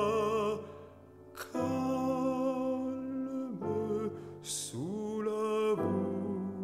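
Background music: a slow, tender French song. Long held notes with vibrato, a brief lull about a second in, then notes sliding down and back up before settling.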